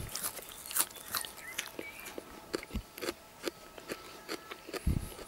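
A raw spiny thistle leaf being bitten and chewed right at the mouth: a run of irregular crisp crunching clicks, with a few dull thumps.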